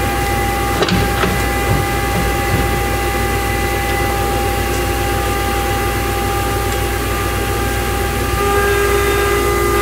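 Aslan US1-420 17-inch upcut saw running steadily, its motor and blade giving a constant hum with several steady whining tones. A few light clicks come about a second in, and another tone joins near the end.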